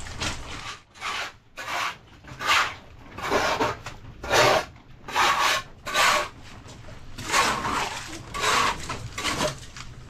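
Rough rubbing or rasping strokes, repeated about a dozen times at roughly one a second, with short gaps between them.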